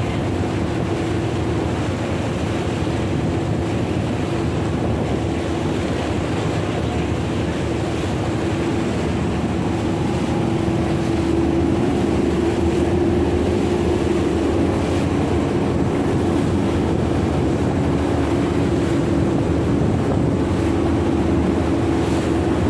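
A boat's engine running steadily with a constant hum, over water rushing past the hull and wind on the microphone. The engine grows a little louder about halfway through.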